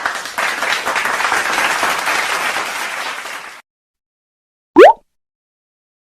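Applause sound effect: a crowd clapping for about three and a half seconds, tapering off and stopping abruptly. Near the end, one quick rising whistle-like glide.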